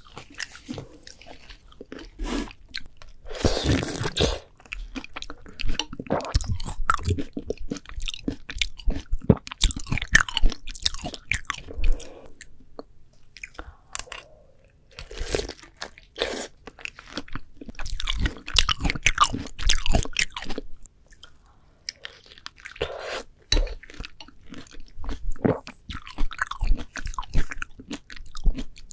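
Close-miked bites and chewing of ripe, juicy melon: irregular wet crunches and slurpy squelches of the soft fruit flesh, with short pauses between mouthfuls.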